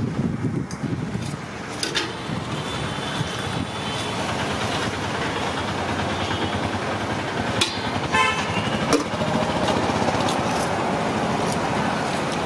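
Steady road traffic noise with a vehicle horn sounding. A few sharp clinks of steel serving spoons against stainless-steel pots cut through it.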